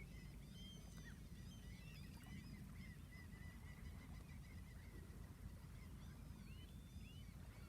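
Faint calls of many distant birds, short overlapping chirps and honks scattered throughout, over a low steady rumble.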